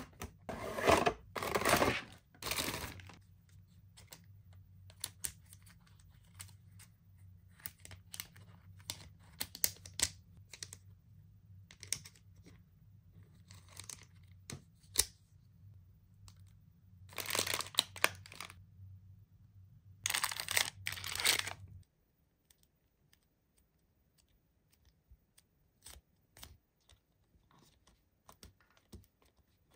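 A craft kit being unpacked and handled: the cardboard box and plastic packaging rustle and tear in a few loud bursts, near the start and twice more past the middle. In between come light clicks and taps as the plastic stencils are handled, and the last part is much quieter, with only sparse soft clicks.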